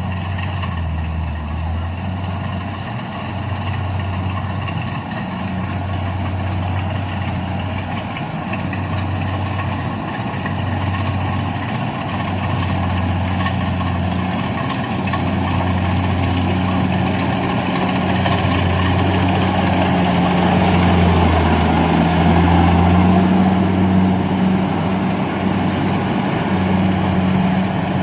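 Rice combine harvester's engine running steadily under load, a low pulsing hum that grows louder past the middle.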